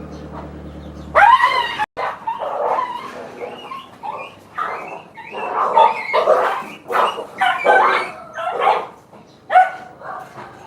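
A dog whining and yipping over and over in short high-pitched cries that bend in pitch. A low steady hum under it stops about two seconds in.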